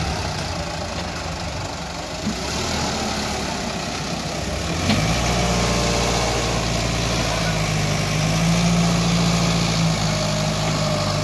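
Sonalika tractor's diesel engine running steadily. A single knock comes about five seconds in, after which the engine note is louder and deeper.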